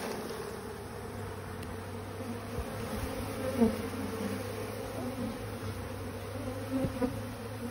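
Honeybees buzzing in a dense, steady hum: a mass of bees just shaken off a brood frame into a plastic tub. A brief louder buzz comes about three and a half seconds in.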